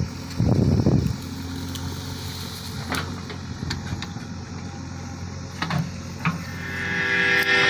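Diesel engine of a JCB 3DX backhoe loader running steadily, with a louder surge about half a second in and a few short clicks. Music fades in near the end.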